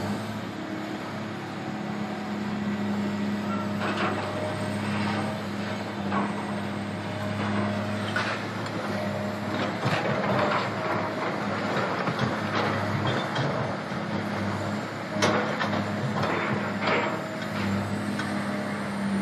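Hydraulic demolition excavators, including a Caterpillar 365BL, pulling down a brick building: a steady diesel engine drone, broken by intermittent crashes and clatter of falling rubble, the sharpest about fifteen seconds in.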